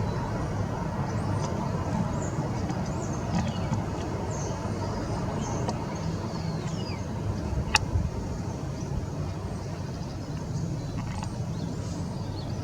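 Faint small garden birds chirping over a steady low background rumble, with one sharp click about two-thirds of the way through.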